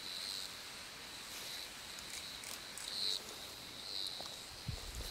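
Insects chirping, a high buzz that comes and goes every second or so, with a low thump near the end.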